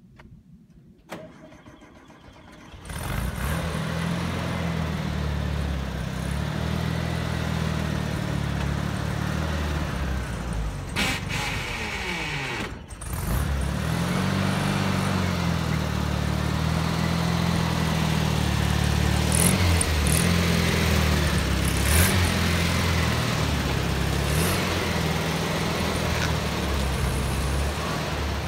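1967 Volkswagen Beetle's air-cooled flat-four engine running as the car is driven slowly and manoeuvred, its pitch rising and falling. The engine comes in loudly about three seconds in and briefly drops away about halfway through before picking up again.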